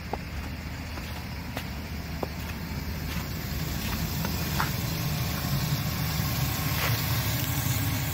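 A 2011 Chevrolet Silverado 1500 pickup's engine idling steadily. The low rumble grows louder about halfway through, and a few faint ticks are heard.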